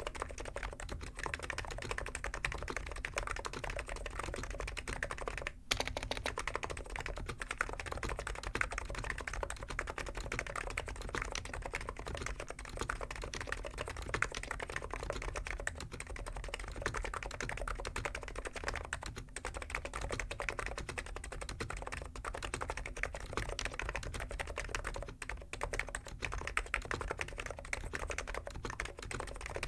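Continuous fast typing on a Hansung GK893B keyboard with stock, unlubed 50 g electro-capacitive (Topre-style) switches, a dense run of keystroke clacks, briefly pausing about six seconds in.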